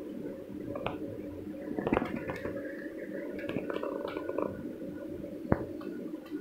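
Steady low equipment hum in a small room, with a few sharp clicks about one, two and five and a half seconds in and some softer knocks and rustles in between.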